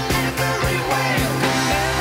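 Background music: a pop-rock song with guitar, a vocal line and a steady beat.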